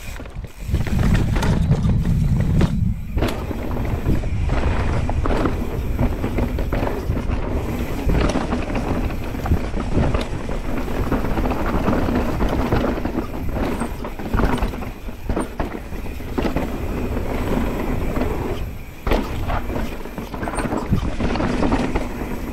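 Mountain bike ridden fast down a dirt trail: wind rushing over the microphone, tyres on dirt and the bike rattling and knocking over bumps.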